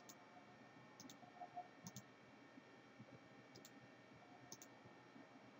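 Faint computer mouse clicks, mostly in quick pairs, over near-silent room tone.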